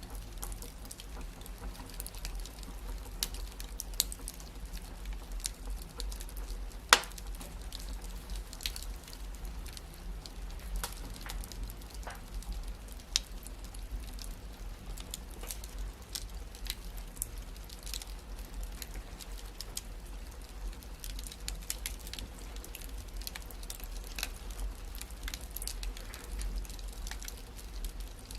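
Wood fire crackling in a fireplace: scattered sharp snaps and pops over a low steady rumble, with one loud pop about seven seconds in.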